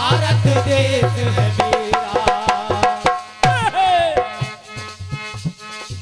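Instrumental break in Indian devotional folk music: a hand drum keeps a quick beat under a wavering melody line. The deep drum strokes drop out a little under two seconds in, and the music thins toward the end.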